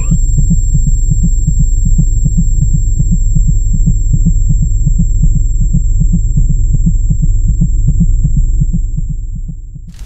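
Sci-fi sound effect: a low electronic hum throbbing in quick, even pulses, about five a second, with a faint high steady whine above it. It fades out near the end.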